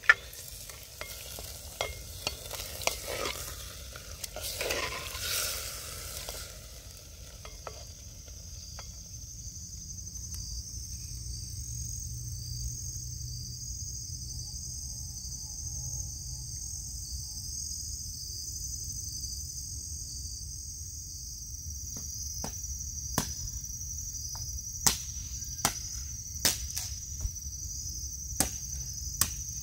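Food frying and sizzling in a pot over a campfire, with stirring, for the first several seconds. Then a steady high insect chorus of crickets, with a few sharp clicks near the end.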